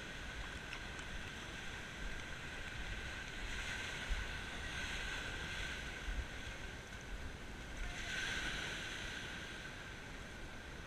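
Small waves washing in over a seaweed-covered shingle shore, the wash swelling twice, about four and eight seconds in, with wind rumbling on the microphone.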